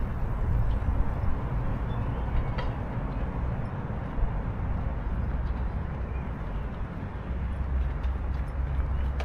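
Steady low rumble of urban traffic, with a few faint ticks above it.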